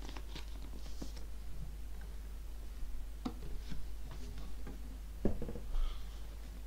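Room tone with a steady low hum and scattered faint clicks and knocks; the sharpest knocks come about three seconds in and about five seconds in.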